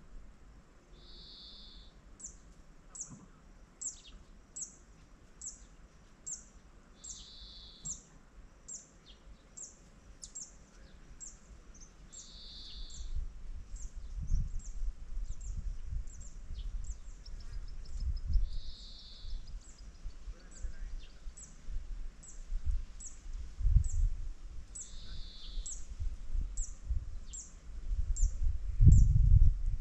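Open-air wetland ambience. A short high chirp repeats steadily about once a second, and a buzzy call of about a second comes back every six seconds or so. From about halfway through, low gusts of wind rumble on the microphone, growing strongest near the end.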